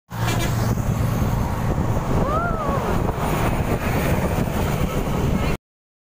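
Steady road and engine noise from riding along in traffic. A short tone rises and falls about two seconds in, and the sound cuts off abruptly near the end.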